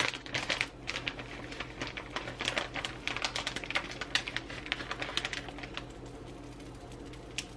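Crinkling of a plastic bag of shredded cheese and a run of small irregular clicks and rustles as a hand pulls cheese out and sprinkles it over a tortilla in a frying pan, thinning out toward the end.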